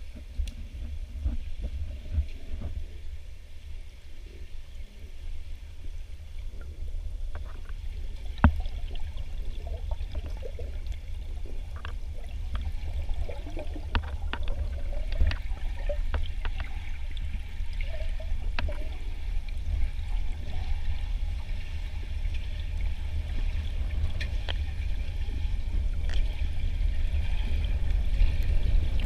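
Underwater pool sound picked up by a submerged camera: a steady low rumble with scattered clicks and water gurgling, getting louder toward the end.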